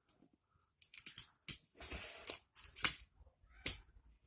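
Plastic magnetic building blocks being handled and snapped together, with rattling and three sharp clicks.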